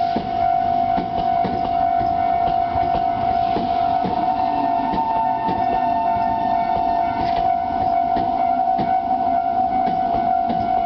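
Japanese railway level crossing alarm sounding its standard electronic bell as a steady, unbroken ringing tone, warning that the crossing is closed, while a train runs over the crossing with clicking wheels.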